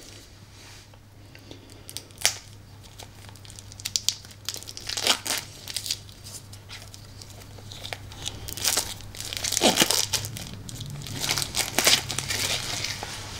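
Plastic shrink-wrap being torn and crinkled off a pack of game cards, in irregular crackling bursts that get busier in the second half.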